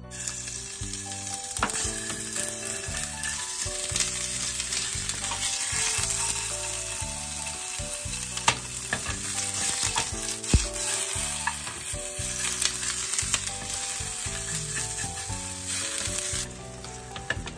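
Salt-koji-marinated chicken thigh pieces sizzling in olive oil in a ceramic nonstick frying pan as they are stirred and turned with a silicone spatula, with a few sharp knocks along the way. The sizzle drops off abruptly near the end.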